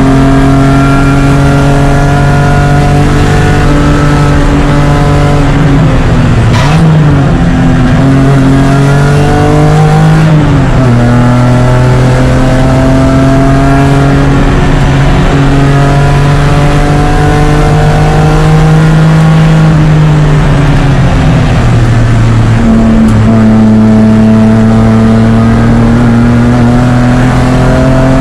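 BMW E36 race car engine heard from on board at full throttle. The note climbs slowly through each pull and falls sharply at gear changes or lifts about 6, 10 and 22 seconds in, with a quick blip near the first fall.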